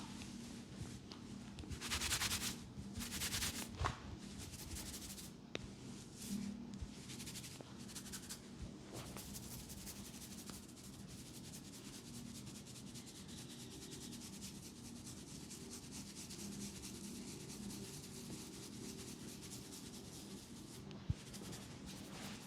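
Massage hands rubbing over skin and hair, a continuous dry rubbing, with louder rustling a few seconds in and one sharp click near the end.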